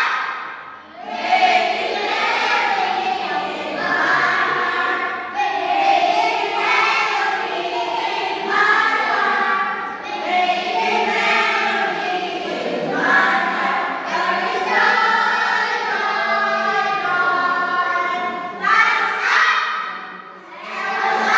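Videoke (karaoke) singing: voices holding long, drawn-out notes one after another, loud and continuous.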